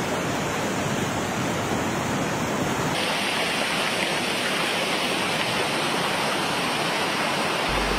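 Muddy flash-flood water rushing down a street and slope, a dense, steady rush of water. About three seconds in it turns brighter and hissier.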